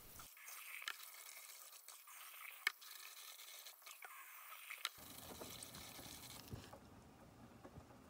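Faint rice washing: grains swished by hand in a stainless steel bowl under a running tap, and the rinse water poured off into the sink, with a few light clicks. The sound changes about five seconds in.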